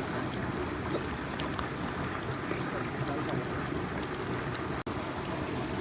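Steady rushing of a stream's running water, broken by a momentary dropout late on.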